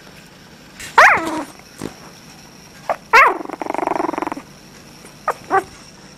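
Japanese Chin puppy vocalizing: a loud high cry that drops in pitch about a second in, then another falling cry that runs into about a second of rattling, growl-like purring, and two short cries near the end.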